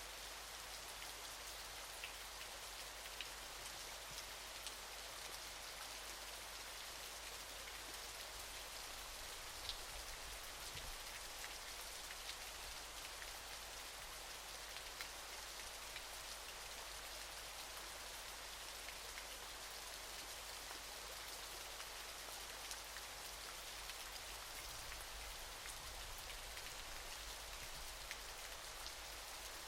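Waterfall: a steady, even hiss of falling water with faint scattered drips and splashes.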